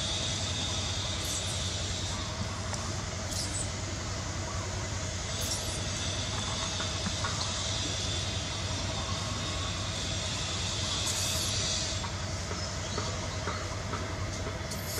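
Steady outdoor background noise: a continuous hum with a high, even buzz over it and a few brief, faint high ticks.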